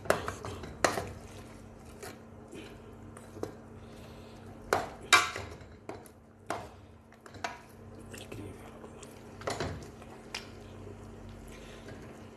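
A metal spoon clanking and scraping against the inside of a large metal cooking pot as chicken pieces are turned over in it. The knocks come at irregular intervals, the loudest about five seconds in.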